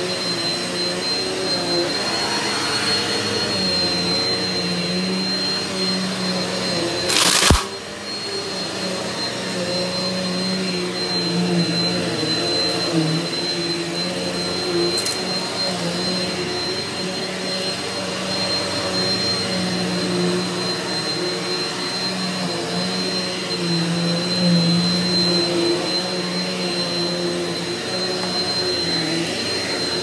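Eureka NEU180B PowerSpeed bagless upright vacuum cleaner running steadily on carpet, a motor hum with a thin high whine over it. A brief loud noise cuts in about seven seconds in.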